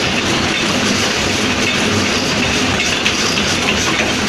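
Continuous loud mechanical clatter and rumble of forging-shop machinery running.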